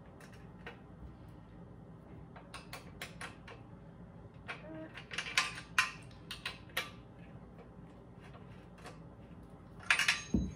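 Small metal clicks and clinks of a bolt being screwed by hand into a steel pull-up bar frame, coming in scattered bunches with a louder cluster near the end.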